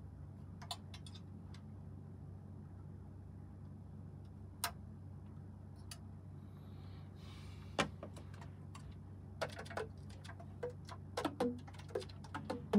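Clicks and light taps of a new Yamaha YAS-280 student alto saxophone's keys and pads being worked by hand, a few single clicks at first and a quicker run of them in the last few seconds, over a steady low hum.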